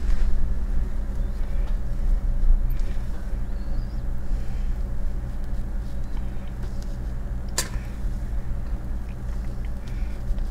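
Steady low mechanical hum, with one sharp clink about seven and a half seconds in.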